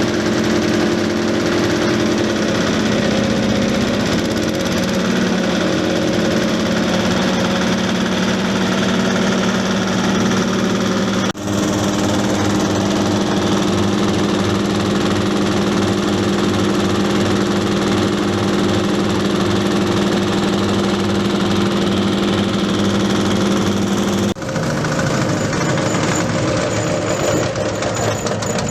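A rice husk grinding mill running steadily and loudly, a machine drone with husk being pulverised. The sound breaks abruptly twice, a little before halfway and near the end, and resumes with a slightly different pitch each time.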